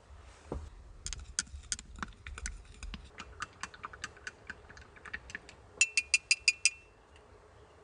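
A run of light, irregular clicks and taps, then a quick burst of about six sharper, evenly spaced clicks with a slight ring, just under a second long, past the middle.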